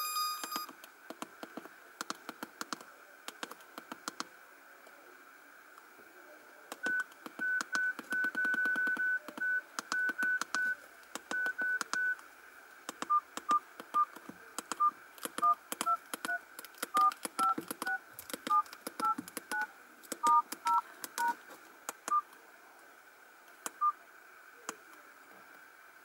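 Mobile phone keypad tones: runs of short electronic beeps as buttons are pressed in quick succession, many sounding as two tones at once like dialing tones and changing in pitch from key to key, mixed with light clicks of the keys. In the first second a ringtone preview cuts off.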